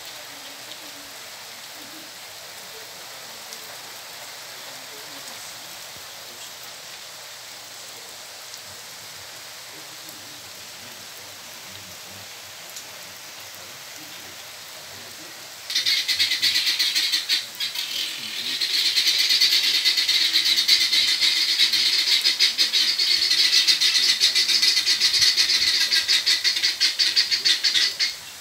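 Steady hiss of heavy rain. About halfway through, a loud chorus of rapid, high-pitched pulsing calls starts suddenly, typical of frogs calling in a downpour.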